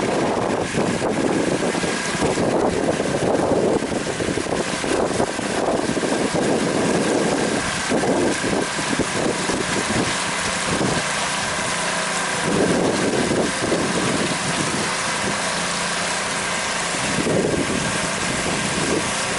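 Pontoon boat's outboard motor running steadily, with a thin steady whine over its hum. Wind gusts against the microphone come and go throughout.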